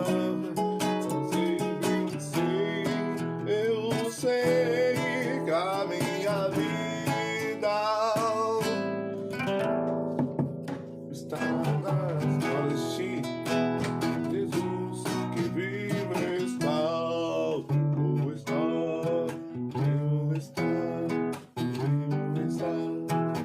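Acoustic guitar being played, a melody over strummed and plucked chords.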